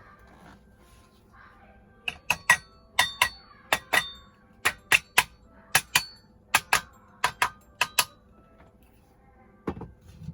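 Sharp metallic clinks, about eighteen taps with a brief ring, mostly in quick pairs, starting about two seconds in and stopping about two seconds before the end, then a duller knock near the end: hard metal parts or tools striking each other.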